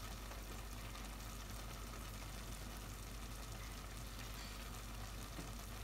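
A pot of Maggi noodles simmering faintly on a gas hob: a steady, quiet sizzle and bubbling over a low hum.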